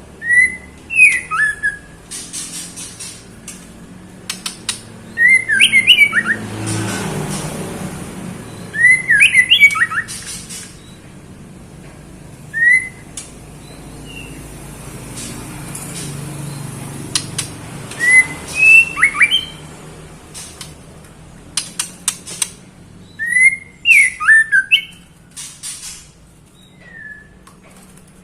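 Female white-rumped shama giving short, sharp calls, each a quick rising-and-falling note, repeated every few seconds: the call of a female in breeding condition summoning a male.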